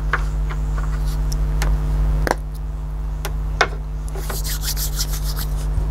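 Small clicks and knocks of objects being handled and set down on a wooden table, with a brief rustle about four seconds in, over a steady low hum.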